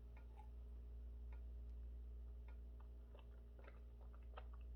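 Near silence: a steady low electrical hum with faint, irregular small clicks.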